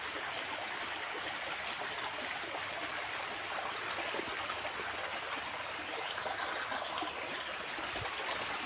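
Creek water flowing steadily, a constant rush of running water.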